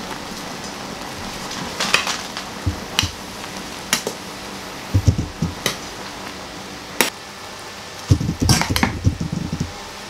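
Metal spoon stirring instant noodles in a small stainless steel pot. It clinks sharply against the pot every second or so, with wet scraping and stirring, and a busier burst of clatter and stirring near the end.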